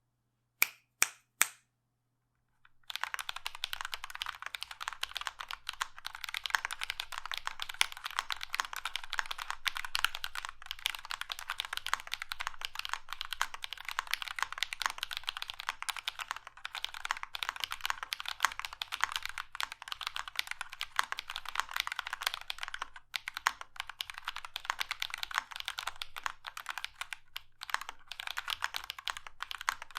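Fast typing on a Prime_E 40% mechanical keyboard with lubed Drop Holy Panda tactile switches, foam-dampened acrylic plate and case, and PBT keycaps: a dense, continuous stream of keystrokes starting about three seconds in, with a couple of brief pauses. Three sharp clicks come first.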